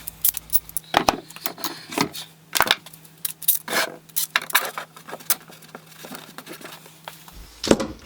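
Irregular series of light clicks and knocks, hard objects being handled and set down in a workshop.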